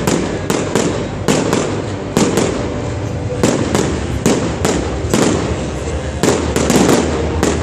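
Fireworks bursting in a rapid, continuous barrage: loud, sharp bangs about two to three a second, each trailing off in echo over a constant rumble.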